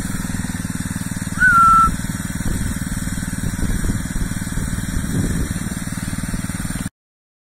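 Small engine of a radio-controlled lawn mower running steadily. About a second and a half in comes a single short, high-pitched peep. The sound cuts off suddenly near the end.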